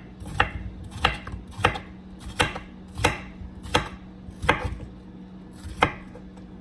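Knife slicing cucumbers: about eight sharp, evenly spaced cuts, roughly one every two-thirds of a second, with a pause near the end.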